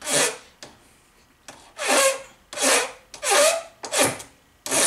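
Flat hand file rasping across the mouth of a brass cartridge case, filing down a high spot to even the case length. One stroke at the start, a pause of about a second and a half, then four strokes about every 0.7 s.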